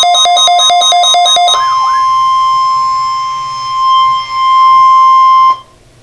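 NOAA Weather Radio test signal: a rapidly pulsing electronic alert beep gives way, about one and a half seconds in, to the steady 1050 Hz warning alarm tone. The tone holds for about four seconds and cuts off suddenly.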